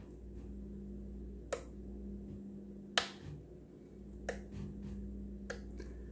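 Toggle switch on a JR radio-control transmitter flipped through its positions: four sharp clicks, about a second and a half apart. The switch has been disabled, so the transmitter gives no voice announcement after the clicks.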